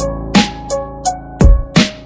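Background music: an electronic track with a heavy beat of deep kick drums and sharp snare hits over held melody notes.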